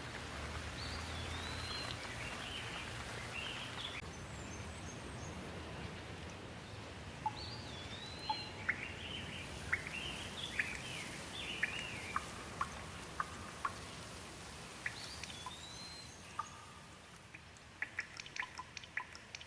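Steady rain with a bird calling over it: short chirping phrases, one of them a rising-then-falling whistle that comes back about every seven seconds. The rain thins toward the end, and a quick run of sharp water drips starts in the last couple of seconds.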